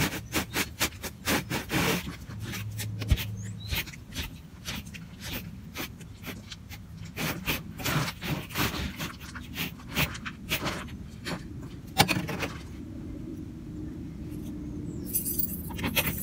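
Rapid, irregular scraping and crunching strokes on snow and ice, easing off about twelve seconds in as a steady low hum carries on.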